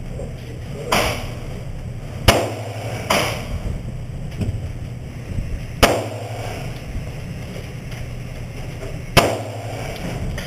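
Five shots from a Walther semi-automatic pistol, fired one at a time at uneven intervals: three in quick succession about a second apart, then two more after longer pauses.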